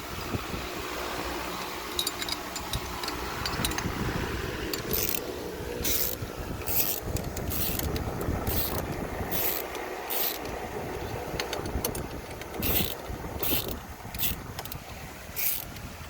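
Metal tools working on a steering column's lock plate and retaining ring: a string of short metallic scrapes and clicks, about one to two a second, starting about five seconds in over a steady background hiss.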